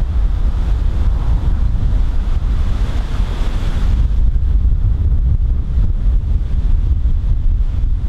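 Strong wind buffeting a Rode VideoMic Pro microphone, a heavy, steady low rumble. A higher rushing hiss of the gust is stronger at first and drops away about four seconds in.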